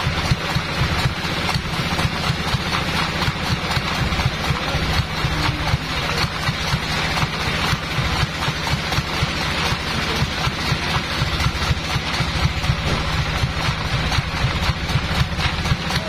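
Sawmill engine idling steadily, its low note pulsing evenly with no cut under way.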